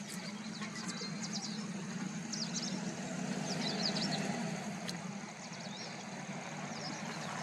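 A vehicle engine idling with a steady low hum, while small birds give clusters of quick high chirps about once a second.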